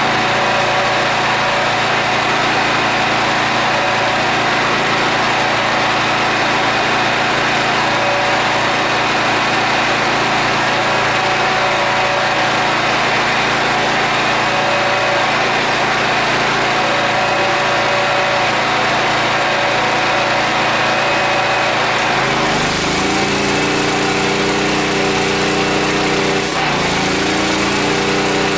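Harbor Freight Predator 8750 inverter generator engine running steadily. About three quarters of the way in, the TIG welder set to 200 amps strikes its arc and loads the generator: the engine speeds up and settles at a higher pitch, with the arc's hiss on top.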